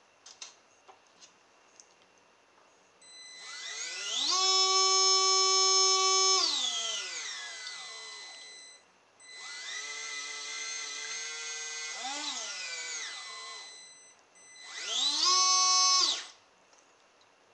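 Small DC water pump motor of a model jet boat whining up to speed, running and winding down three times, the middle run quieter, with a steady high-pitched whine from its brushed-motor speed controller. The pump gives poor thrust, which the owner takes to mean something is still jammed inside it.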